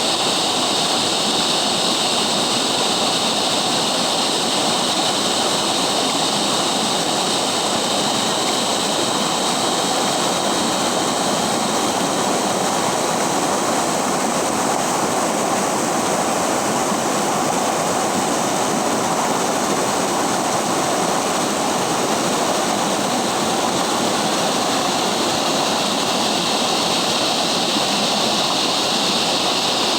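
River water flowing with a steady, even rush that does not change.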